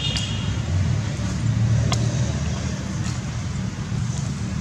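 Steady low outdoor rumble of background noise, with a few faint clicks, the clearest near the middle.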